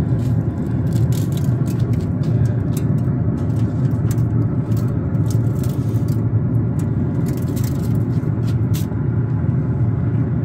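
A steady low rumble, with scattered light clicks and taps as a seasoned rib roast is lifted and set down on a smoker's wire grate.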